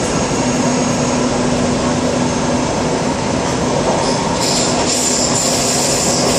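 MTR C-Train subway car running through a tunnel, heard from inside the car: a loud, steady rumble with a low hum. From about four seconds in, a high wheel squeal rises over it.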